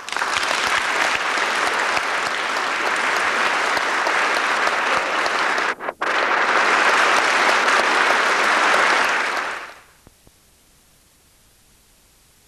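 Audience applauding, with a short break about six seconds in; the applause stops about ten seconds in.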